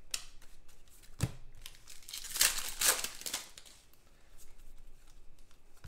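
Trading cards being flipped through by hand, the glossy cards sliding and rubbing against each other, with a sharp tap about a second in and a louder rustling stretch a little after two seconds in.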